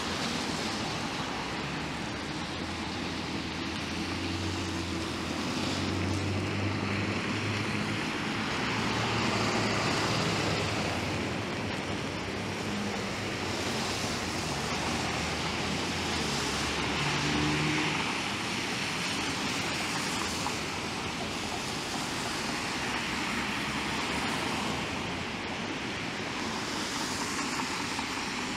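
Wet city street traffic: a steady hiss of tyres on rain-soaked pavement with rain, and the low hum of passing vehicle engines, strongest from about 4 to 18 seconds in.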